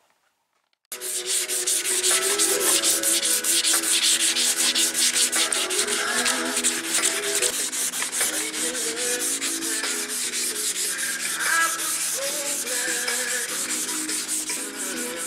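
Wet-sanding primer on a fiberglass fender flare by hand with a sanding block: rapid back-and-forth scraping strokes that start abruptly about a second in. Steady tones that shift in pitch run under the strokes.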